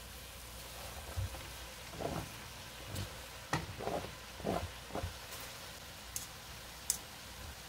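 Shredded cabbage scraped off a plastic cutting board with a spatula into a frying pan of vegetables: a run of soft scrapes and knocks over faint sizzling, then two sharp clicks near the end.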